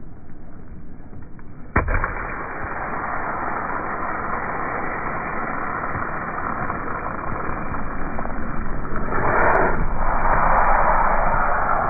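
A sharp pop about two seconds in as a plastic ketchup bottle bursts under a pickup truck's tyre, then a long steady rushing noise as the ketchup squirts out, growing louder near the end.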